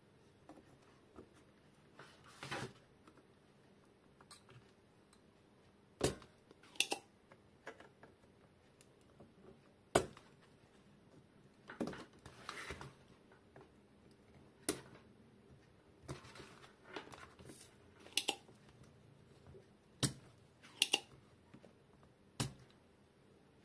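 Spring-loaded desoldering pump cocked and fired against a circuit board, giving sharp clicks about every two to four seconds, some in quick pairs, with softer tool-handling noise between. The pump is sucking solder from the leads of shorted diodes so they can be removed.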